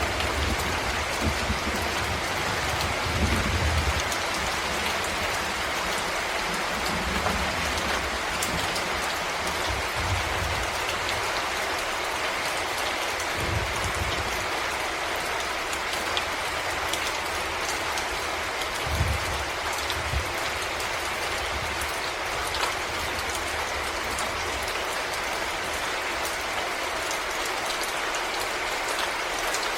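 Steady rain falling in a forest: a dense, even hiss of drops, with fine pattering ticks throughout and a few brief low thumps scattered through it.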